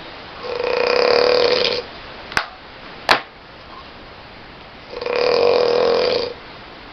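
A person snoring loudly: two long, buzzing snores on the in-breath, about four seconds apart. Between them come two sharp clicks.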